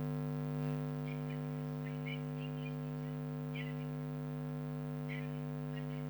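Steady electrical mains hum with a stack of evenly spaced overtones, with faint short high chirps scattered through it.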